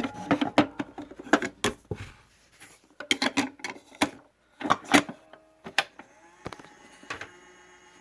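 Irregular sharp plastic clicks and knocks from handling a Fisher-Price toy record player, bunched in two busy spells with a short lull between, and a few faint music-box-like notes later on.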